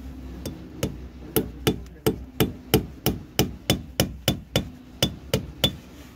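A hammer driving a steel nail into a mortar joint of block masonry: a steady series of about sixteen sharp blows, roughly three a second. The nail goes in only with great difficulty and bends slightly, because the cement-sand mortar is four to five days old and not yet fully cured.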